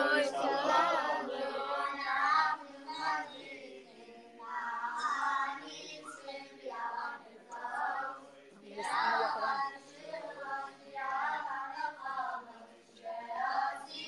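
A group of voices, children's among them, singing a traditional Hanukkah song together right after the menorah candle lighting, in short phrases with brief breaks between them.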